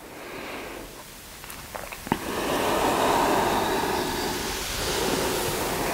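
Soft rushing noise on a clip-on microphone as a seated person slowly circles the upper body. It swells about two seconds in and stays, with a couple of faint clicks just before.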